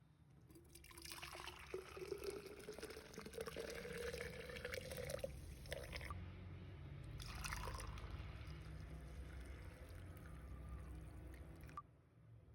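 Liquid being poured into a container, its pitch rising steadily as the vessel fills over about five seconds. More pouring or sloshing follows and stops abruptly near the end.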